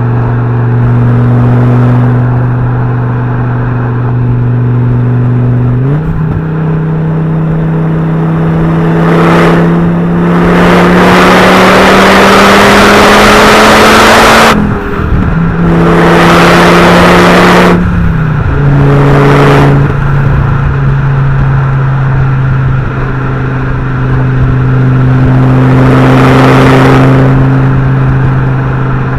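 Fiat Coupe 20V Turbo's turbocharged five-cylinder engine driving through the gears: its note climbs steadily in two pulls, each cut off by a sudden drop at a gear change, then settles to a steady cruise. A loud rushing noise swells under load during the pulls.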